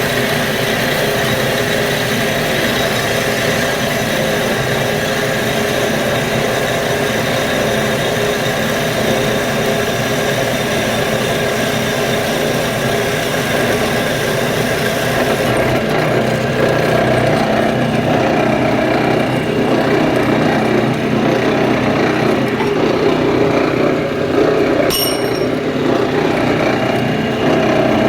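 A machine running steadily with a hum of several steady tones. Its high hiss drops away about halfway through, and a brief sharp click with a high tone sounds near the end.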